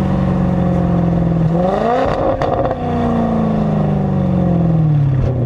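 Maserati Quattroporte's 4.2-litre V8 running steadily, then revving up quickly about a second and a half in, with a brief crackle at the top, before the revs fall away slowly.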